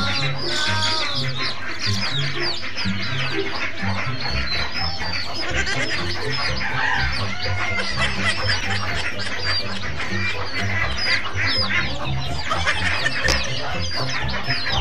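A flock of young chickens cheeping constantly, many short high calls overlapping, with background music underneath.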